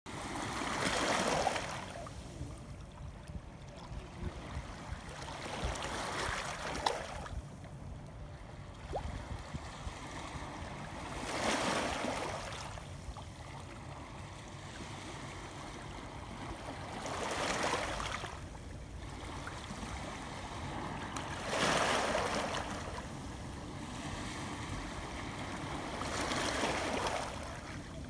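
Small sea waves washing in over a pebble shore, each wash swelling and fading about every five seconds.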